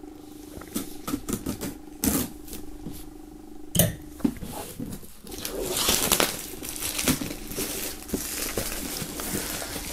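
Plastic shrink-wrap being slit with a knife and pulled off a cardboard box: a few sharp taps and knocks against the box, then crinkling and rustling of the film for several seconds.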